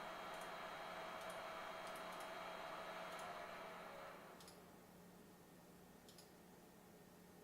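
Faint, scattered clicks, about seven in all, typical of a computer mouse being clicked, over a steady low hum. A whirring hiss with a steady tone winds down a little in pitch and fades out about four seconds in.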